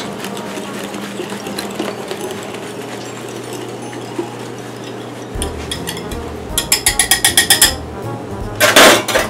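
Wire whisk beating aioli in a glass bowl: a light, steady patter of the whisk tapping the glass, then a quick run of about ten sharp clinks around seven seconds in. A short, loud scraping rush follows near the end.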